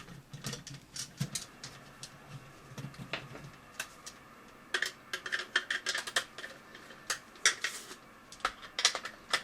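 Irregular light clicks and taps of small screws and hard plastic parts being handled as a paintball magazine is taken apart, with a cluster of clicks about halfway through and a few more near the end.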